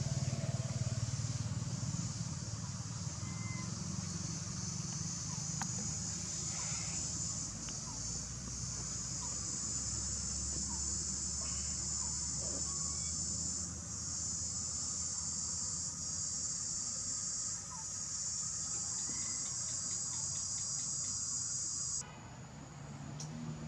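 A steady, high-pitched insect chorus drones on, dipping briefly a few times, and cuts off abruptly near the end. A low background rumble runs underneath.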